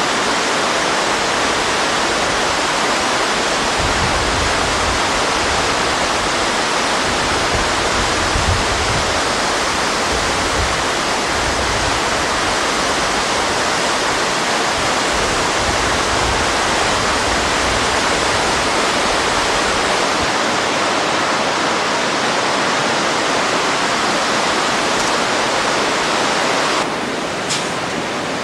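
Steady, loud rushing of a river in flood, with some low rumbling in the first half. Near the end it cuts to a quieter background with a few sharp clicks.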